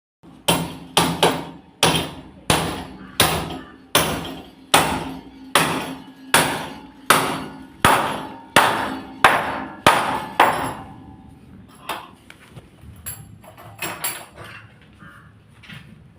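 Hammer blows at a steady pace, a little faster than one a second, each with a short ringing decay. After about ten and a half seconds they give way to lighter, scattered knocks.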